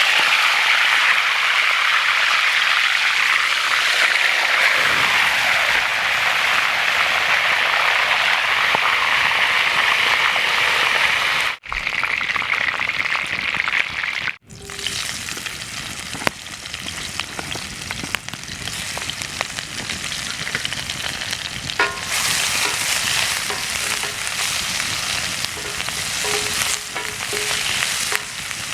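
Tilapia frying in hot oil: a steady sizzle, loud at first, that breaks off twice a little under halfway through and returns quieter.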